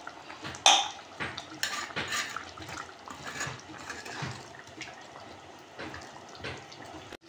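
A metal utensil clinking and scraping against a cooking pot of potatoes just covered with water, with a sharp clank about two-thirds of a second in and several lighter knocks after it, over a faint sloshing of liquid.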